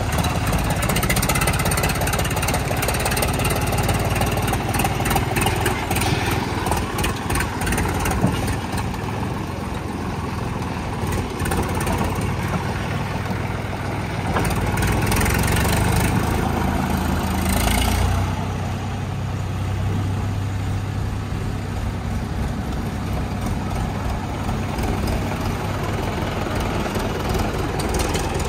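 Diesel tractor engines running steadily, with a backhoe loader's engine also running at the start. About halfway through, the engine note grows louder for a few seconds, then drops abruptly.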